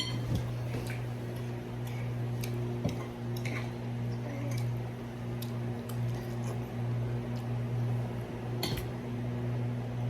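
Cutlery clicking and clinking now and then against plates during a meal, over a steady low hum.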